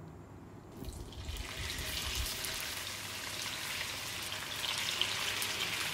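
Chunks of raw pork sizzling and crackling as they drop into hot olive oil in a frying pan, starting about a second in and going on steadily, with a few low thuds from the pieces landing early on.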